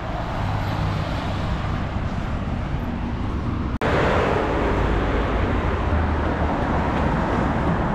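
Steady road traffic noise from cars passing on a highway. It cuts out for an instant about four seconds in, then carries on slightly louder.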